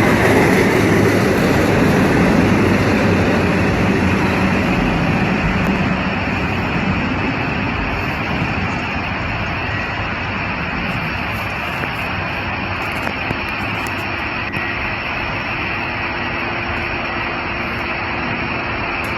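Norfolk Southern intermodal freight train rolling past: a loud, steady rush and rumble of its cars on the rails, easing slightly after about six seconds.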